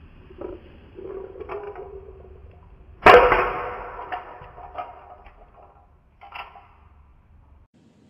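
Small plastic building-block pieces falling and breaking apart: one loud sharp crack about three seconds in that rings briefly, with a few lighter plastic knocks before and after.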